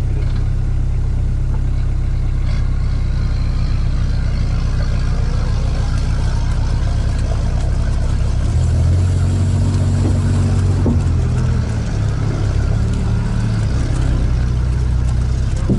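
All-terrain vehicle's engine running steadily, heard from inside its cab as it drives slowly over rough grass. The engine note swells a little about nine seconds in, then settles again.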